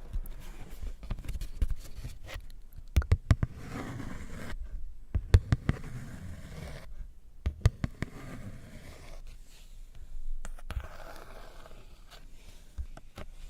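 Close-miked ASMR trigger sounds: soft scratching and scraping, broken by many sharp taps and clicks. The loudest clusters of taps come about three, five and seven and a half seconds in.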